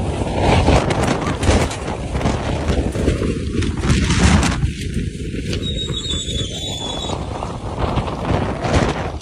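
Strong storm wind gusting against the microphone, a heavy rushing noise that surges and eases. A brief high squeal sounds about six seconds in.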